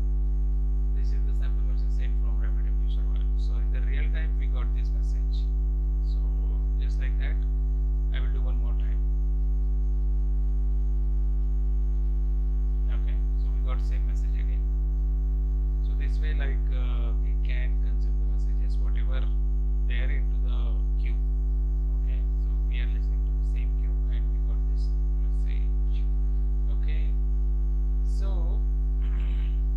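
Steady electrical mains hum in the recording, a loud low drone with a ladder of higher steady overtones and no change in level. Faint, scattered short sounds lie above it.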